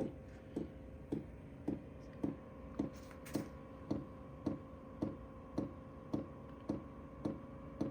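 LF Bros N2 diesel heater's fuel pump clicking at an even pace of about two clicks a second during startup, before the burner has lit, over a steady whine from the heater ramping up.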